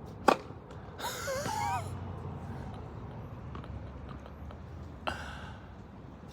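A single sharp crack of a tennis racket striking the ball on a serve, about a third of a second in. It is followed by a brief scratchy sound with faint wavering squeaks, and a fainter knock near the end.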